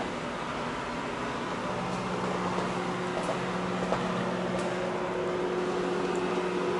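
Steady machine hum with a constant low drone and hiss, and a few faint ticks.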